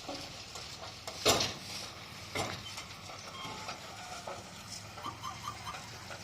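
Bulldozer engine running with a steady low hum, and two sharp metallic clanks, the loudest a little over a second in and a smaller one about a second later. A quick run of four short chirps comes near the end.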